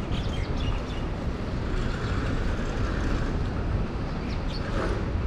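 Steady city street noise: a low traffic rumble with a vehicle going by.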